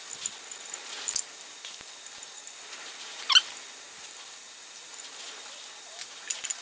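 Balance shaft being worked out of a Saab B204 engine block by hand: a few light metallic clicks, and one short squeak gliding down in pitch about three seconds in as the shaft slides in its bore.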